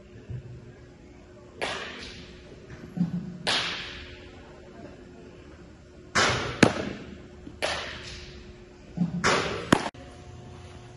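Baseballs smacking into a catcher's mitt and gear and bouncing off the turf during a receiving and blocking drill: sharp pops every second or two, some in quick pairs, each with a short echo.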